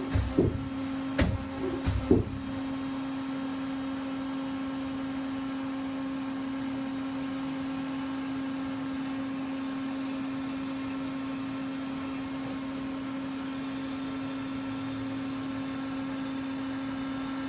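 Hyundai 500L CNC vertical turning lathe running with a steady machine hum, with a few sharp clicks in the first couple of seconds.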